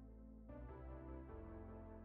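Soft background music with sustained keyboard chords that change every second or so.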